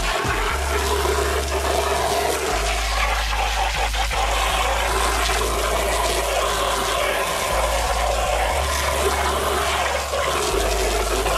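Pressure washer jet spraying rubber truck floor mats and concrete: a steady, loud hiss of water spray.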